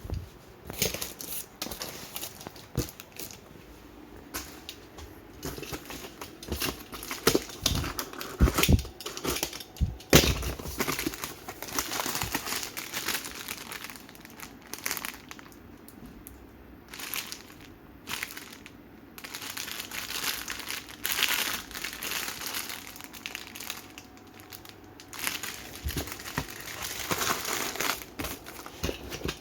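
Plastic instant-noodle packets crinkling and rustling as they are handled and unpacked, with irregular crackles and a few sharper knocks and tears.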